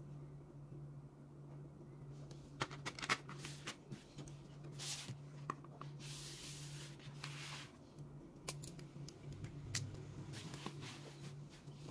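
Stationery being handled: light plastic clicks and taps from pens and a clear plastic pen case, with a few short spells of paper rustling and sliding as a notebook is opened and a hand smooths its pages. A low steady hum runs underneath.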